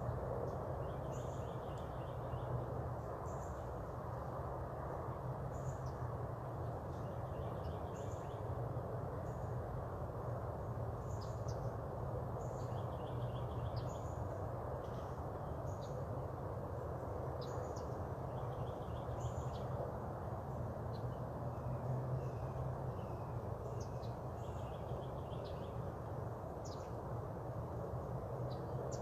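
Wild birds calling: short high chirps every second or two and a repeated buzzy trill every five or six seconds, over a steady low background hum.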